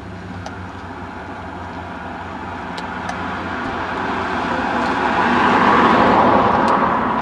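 A car passing on the road: tyre and engine noise builds steadily to its loudest about six seconds in, then begins to fade.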